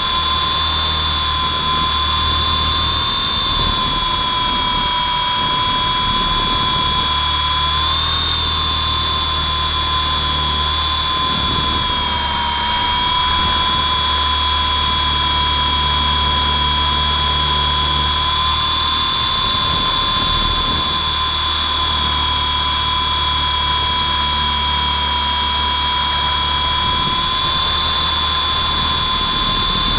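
Electric motors and rotors of a WLToys V912 RC helicopter in flight, recorded up close by the camera mounted on it: a loud, steady high whine with a low rumble under it. The pitch dips briefly about 8 and 12 seconds in.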